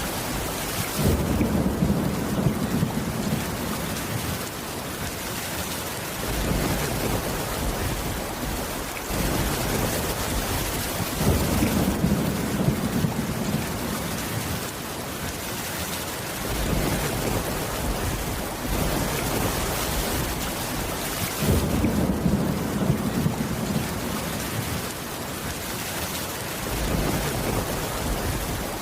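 Steady heavy rain with thunder rumbling low three times, about ten seconds apart, each roll lasting a few seconds.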